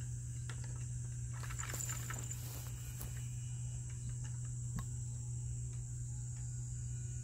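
Crickets chirping steadily in a continuous high-pitched trill, over a low steady hum and a few faint ticks.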